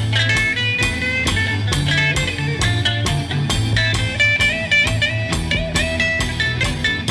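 Background rock music led by guitar, with a steady beat and a bass line.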